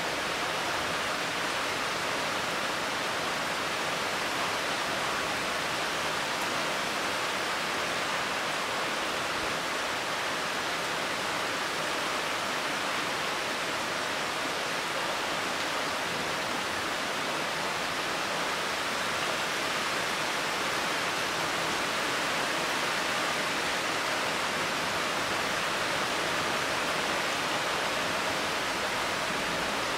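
Steady summer rain falling on leafy trees and a garden, an even rushing patter with no let-up.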